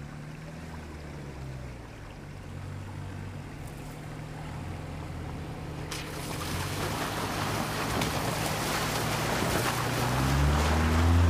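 2024 Toyota Land Cruiser driving slowly through a muddy water crossing. A low engine hum runs under a rushing splash of tyres pushing through water that starts about halfway through and grows louder. Near the end the engine note swells and shifts in pitch as the vehicle comes close and passes.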